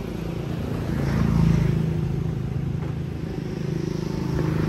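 Street traffic: a motor vehicle's engine passing, swelling to its loudest about a second and a half in, then easing, with another swell near the end.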